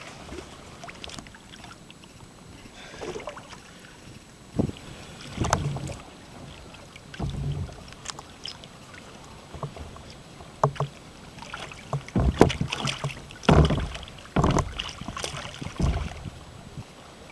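Irregular splashes and hollow knocks of a plastic fish-measuring trough and hands working in the water against a kayak hull, used to corral a lingcod at the surface. The knocks come more often and louder in the second half, over a light wind hiss.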